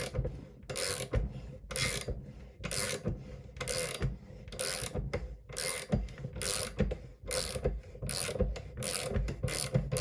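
Socket ratchet wrench clicking in repeated short strokes, one every half second or so, as it turns the screw of a sight-pusher tool. It is pressing the rear sight sideways out of a 1911 slide's dovetail.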